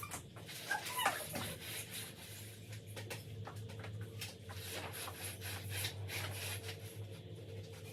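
A pet's short whining cry, falling in pitch, about a second in, then steady rubbing with scattered light clicks and knocks.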